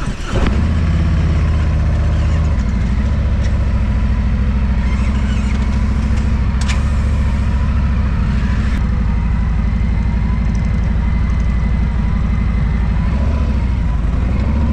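Harley-Davidson Road Glide Special's V-twin engine running under way at a steady pace. The engine note shifts about two and a half seconds in, and dips and picks up again near the end.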